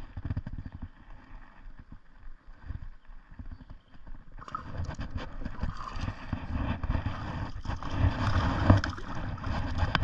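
A hooked saugeye splashing and thrashing at the water's surface beside the boat as it is reeled in, starting about halfway through and growing louder. Before that, only low rumbling and thumps on the microphone.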